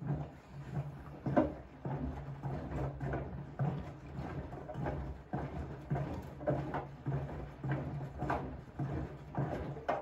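Siemens front-loading washing machine tumbling a soaked pillow during the wash: water sloshing and soft, irregular thumps about once a second over a steady motor hum.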